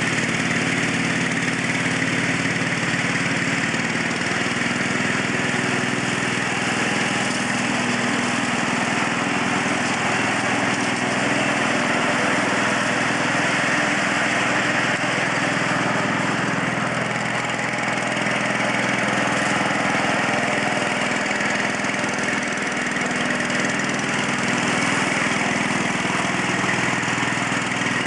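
Garden tractor's small engine running steadily as the tractor drives across the lawn.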